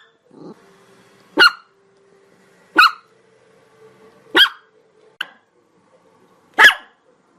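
Chihuahua barking: five single, sharp, high-pitched barks spaced about one to one and a half seconds apart, the fourth short and faint.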